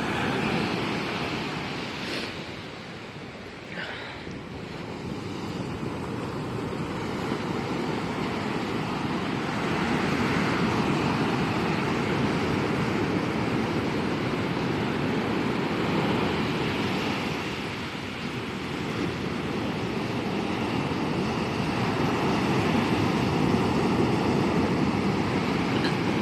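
Sea surf, waves washing in and out as a steady rush that swells and eases over several seconds, with a short high sound about four seconds in.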